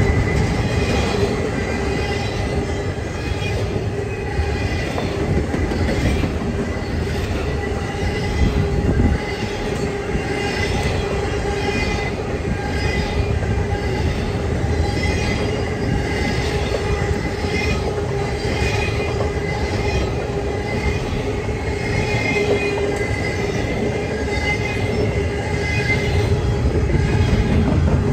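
Freight train cars rolling past with a continuous low rumble, and wheels squealing on the rail in steady high tones. It gets a little louder near the end.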